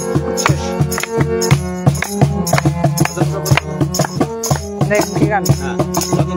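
Instrumental break in a Bengali folk song: a harmonium holds a steady chordal melody over hand percussion keeping a brisk, even beat.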